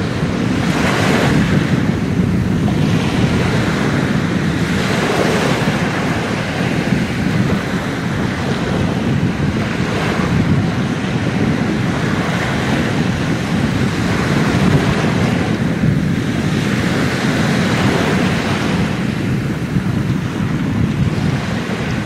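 Small sea waves breaking and washing up the sand at the water's edge: a continuous rumble of surf with a hissing wash swelling every few seconds as each wave comes in.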